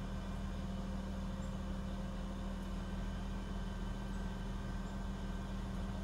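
Engine of a large tree-removal machine, likely a crane, running steadily with a constant low hum.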